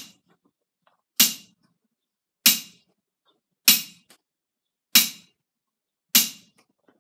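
Hardened steel ball bearing, about 30 mm, bouncing on the face of a 6150 cast steel anvil: five sharp metallic clicks with a brief ring, evenly spaced just over a second apart. This is a rebound test, and the ball keeps bouncing back high off a very hard face, judged at least a 95% rebound.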